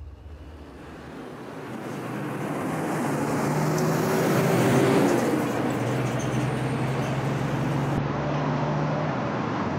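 Road traffic noise fading in, with a low vehicle engine hum that is loudest about halfway through, then a steady traffic rush.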